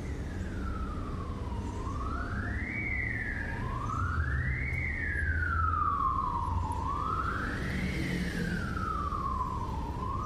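A siren wailing: a single tone sweeping slowly up and down, about three full rises and falls, each taking some three seconds. A steady low rumble runs underneath.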